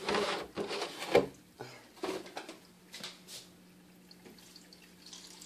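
A few knocks and rustles of handling in a kitchen, a plastic milk jug being taken up and moved, the sharpest knock about a second in, then a faint steady low hum.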